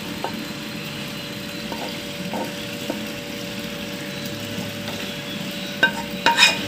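A spatula scraping thick, sticky halwa out of a pan onto a plate, with a few soft clicks and taps and a cluster of sharper knocks near the end, over a steady hum.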